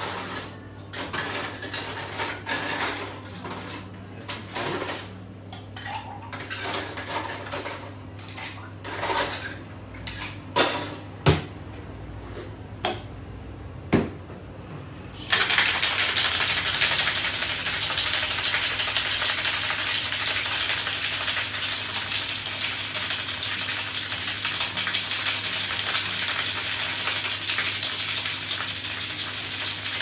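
Ice scooped and rattled at an ice maker, with irregular clinks, clatter and a few sharp knocks. About halfway through, a metal cocktail shaker starts being shaken hard with ice: a dense, steady rattle that keeps on.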